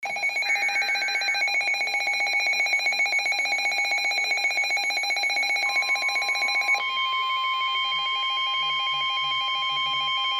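Emergency Alert System alarm tones: electronic tones pulsing rapidly in a warble. A long steady tone joins about six seconds in, and the pulsing pattern changes about a second later.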